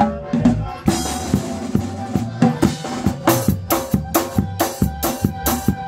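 Drum kit played live: bass drum and snare keeping a steady beat with cymbal strikes, a cymbal crash ringing on from about a second in, and regular strokes at about three a second in the second half.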